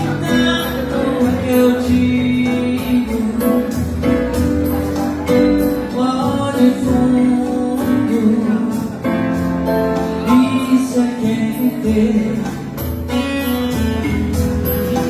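Singing of a Brazilian pop song with guitar accompaniment.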